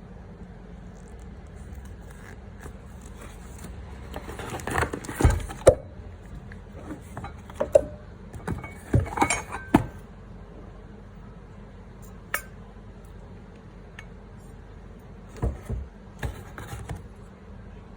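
Hard objects being handled: a scatter of clinks and knocks, busiest in the first half, then a single sharp click and a few more knocks near the end. No power tool motor runs.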